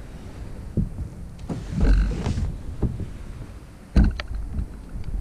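Stealth fishing kayak's plastic hull being slid onto a car roof rack: a rough scrape and rub about two seconds in, then a hard knock about four seconds in as it drops onto the rack, followed by a few light clicks.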